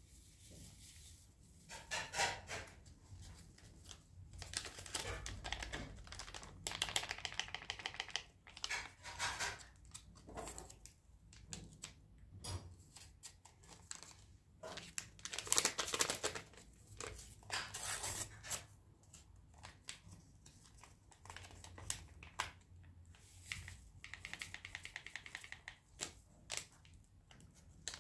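Sachets of pectin crinkling and tearing open, and pectin powder being stirred into sugar in a bowl: a run of short scrapes and rattles with pauses between.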